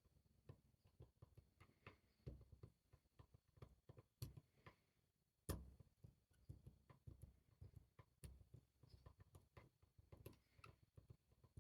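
Faint, irregular little metallic clicks and taps of a lock pick tapping the tapered pins of a Van Lock padlock, a few per second, with one sharper click about five and a half seconds in.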